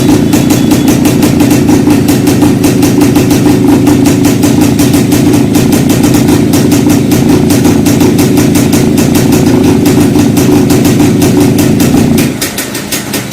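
Old Jawa motorcycle's two-stroke engine running with a steady, rapid firing beat, dropping to a quieter run about twelve seconds in.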